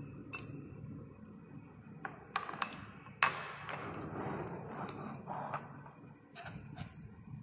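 Light clicks and clinks of steel tweezers and a glass beaker being handled on a lab bench. A sharp clink about three seconds in is followed by a couple of seconds of rustling and scraping, then a few more small clicks near the end.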